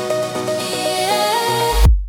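Instrumental electronic dance music build-up: synth chords with notes stepping upward and a swelling hiss. Deep bass comes in near the end, then the track cuts to a split-second of silence at the very end.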